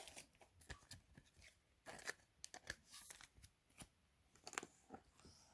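Faint, scattered clicks and soft rustles of baseball trading cards being handled and flipped through one by one; otherwise near silence.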